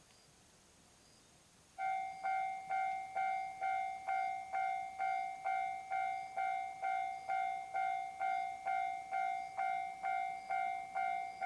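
Railway level-crossing alarm starting up about two seconds in and ringing a repeated two-tone clang, about two strikes a second, warning that a train is approaching.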